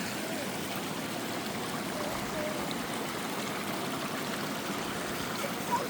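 Steady rushing of a waterfall and the creek running below it.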